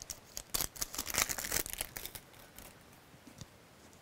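Plastic crinkling and clicking as a plastic surprise egg is opened and the candy packet inside is handled. The crinkles and clicks are irregular and fade out after about two and a half seconds.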